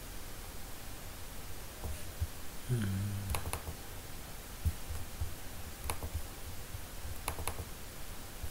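Computer mouse clicking: a double-click a little over three seconds in, a single click near six seconds and another double-click near the end, over a faint steady background. A brief hum of a voice comes just before the first double-click.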